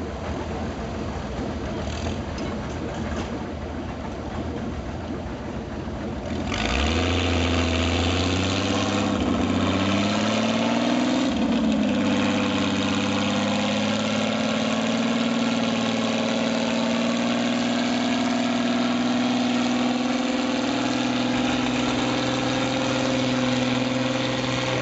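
Farmall 460 tractor engine running at low revs, then opening up about six seconds in and working hard under load on the pull. Its note climbs for a few seconds, then holds steady and loud.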